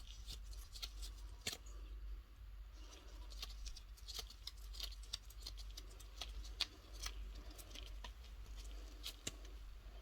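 Faint, irregular small clicks and scratches of gloved fingers twisting a metal screw eyepin into a resin keyring letter, over a steady low electrical hum.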